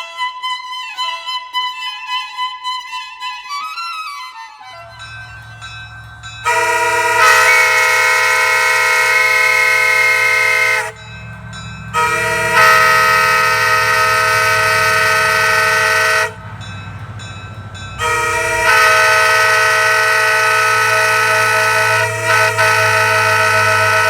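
Roy Victor Butler S75-S5 five-chime air train horn, with second-generation aluminium power chambers, sounding three long blasts of about four seconds each. The blasts give a harsh chord typical of these horns, which are nicknamed screeching cats, over a steady low hum. Violin music plays for the first few seconds, before the hum starts.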